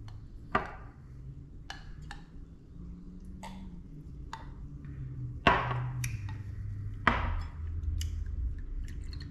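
Glass mimosa glasses and a champagne bottle knocking and clinking as they are handled and set down on a counter: a string of sharp knocks, the loudest two about five and a half and seven seconds in.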